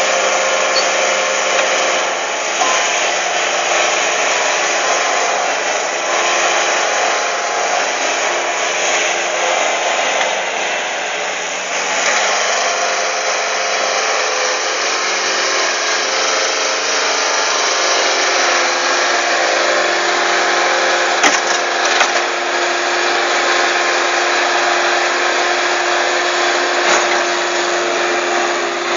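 Bobcat S130 skid-steer loader's diesel engine running under load as the machine levers itself up on its bucket and climbs into a dump truck bed. Two sharp knocks come about two-thirds of the way in.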